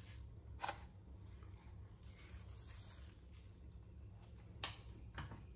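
Light handling of a metal spoon and a stainless steel pot while salt is sprinkled over the grape leaves: two short, sharp clicks, about half a second in and again near the end, over a faint low hum.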